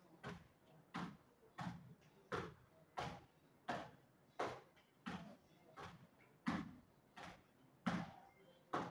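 Rhythmic slaps of a barefoot high-knee exercise on a rubber floor mat, evenly spaced at about three every two seconds.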